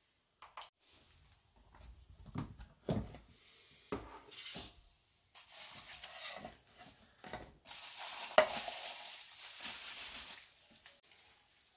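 Light knocks and clicks of a stainless steel cup and utensils on a wooden cutting board, then a plastic food bag crinkling and rustling as it is handled and opened, loudest about two-thirds of the way in.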